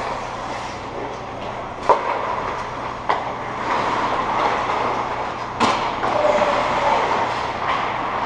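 Ice hockey play in an echoing rink: skate blades scraping the ice steadily, cut by three sharp cracks of stick and puck, the loudest about five and a half seconds in.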